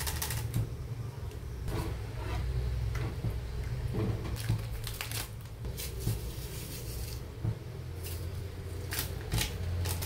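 Metal ladle stirring broth in an aluminium wok, clinking and scraping against the pan in short scattered strokes, with the crinkle of a seasoning sachet being handled, over a steady low hum.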